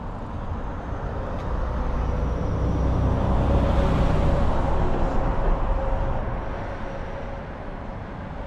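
A road vehicle passing by, growing louder to a peak about four seconds in and then fading, over a steady low rumble.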